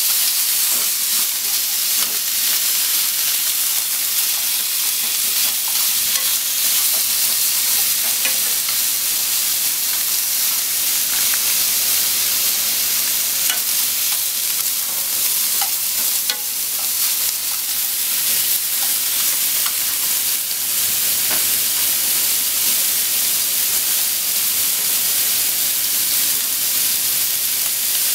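Cubed pork belly frying in a nonstick frying pan: a steady sizzle, with occasional light clicks as wooden chopsticks turn the pieces against the pan.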